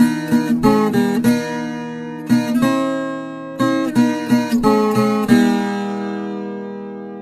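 Acoustic guitar music: short runs of plucked notes, then a last chord about five seconds in that rings and slowly fades.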